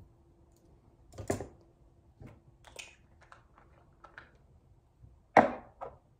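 A scattered series of light knocks and clicks, like small objects being handled and set down, with a sharper, louder knock about five seconds in and a smaller one just after.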